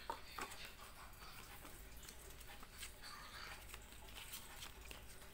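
Handling noise from a cardboard gift box and a folded paper manual: two sharp taps right at the start, then light scattered rustling and ticking.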